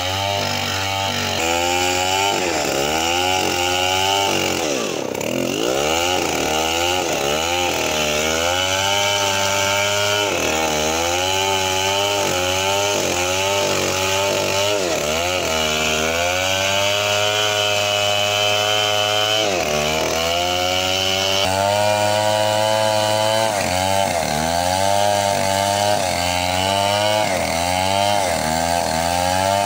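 Stihl 070 two-stroke chainsaw cutting through a coconut palm trunk. The engine pitch dips again and again as the chain bogs in the cut and then picks back up, with one deep drop about five seconds in.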